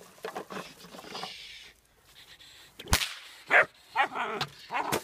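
A sharp crack about three seconds in, then a puppy barking a few times in short, high barks.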